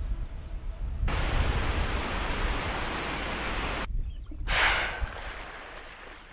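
Wind rumbling on an outdoor microphone, with a loud even rushing hiss that cuts in about a second in and stops abruptly just before the four-second mark. About four and a half seconds in comes a short, loud rushing burst.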